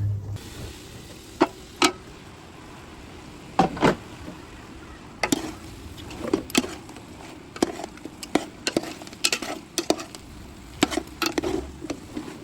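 Kitchen utensil knocking and scraping against a cooking pan with irregular sharp clicks, over a faint steady hiss. A low hum stops just after the start.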